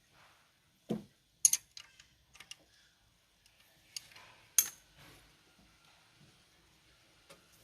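Hand tools clinking against metal engine parts, a few sharp separate clicks with the loudest two about a second and a half and four and a half seconds in, while the rocker arm valve clearance is being adjusted on a Mitsubishi 4D56 cylinder head.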